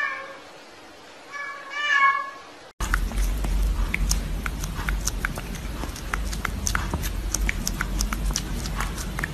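Domestic cat meowing: one meow at the start and two more about a second and a half in. The sound then cuts to a steady low rumble with scattered sharp clicks.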